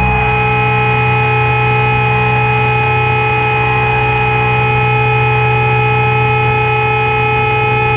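Noise drone from a sludge/doom metal track: a loud, steady wash of hiss with several held feedback-like tones. A further tone comes in just after the start.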